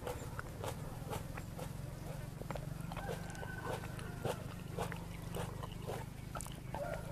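Close-miked chewing of crunchy chicken feet in spicy salad: short crisp crunches, about two a second, over a low steady hum. A thin, high whining tone comes in briefly in the middle and again near the end.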